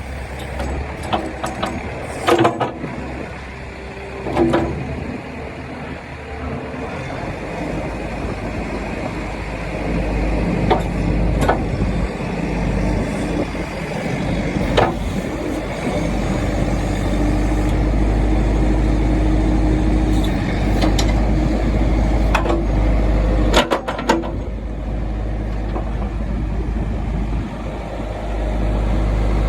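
New Holland 655E backhoe loader's diesel engine running, its level rising and easing as it works, with several sharp metallic clanks along the way.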